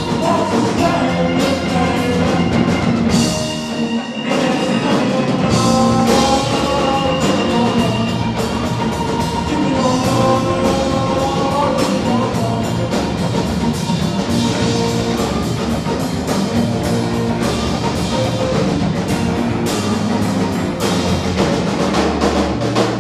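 A live rock band playing: a drum kit keeps a steady beat under electric guitars and keyboard. The low end drops out briefly about four seconds in, then the full band comes back in.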